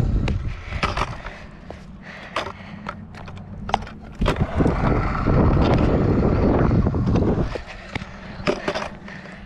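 Stunt scooter wheels rolling over skatepark concrete: a low rumble, loudest in a stretch of about three seconds in the middle, with scattered clicks and knocks from the scooter.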